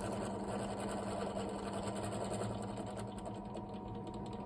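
Electric drill running steadily, its cobalt bit drilling into hardened sprung steel, with a fast, even ticking over a steady motor hum.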